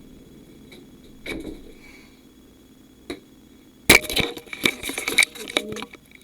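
A few isolated sharp clicks, then a dense, loud run of clicks and crackles starting about four seconds in.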